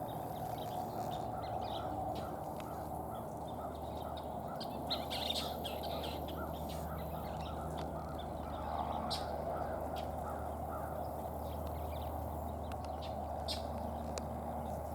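Scissor-tailed flycatchers calling: a run of short, repeated notes at about three a second, with sharper, higher calls scattered among them, over a steady background noise.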